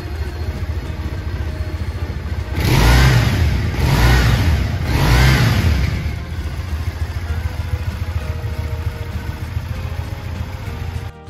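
Triumph Bonneville 865 T100's air-cooled parallel-twin engine idling through its twin exhausts. It is blipped three times in quick succession about three seconds in, each rev rising and falling back, then returns to a steady idle.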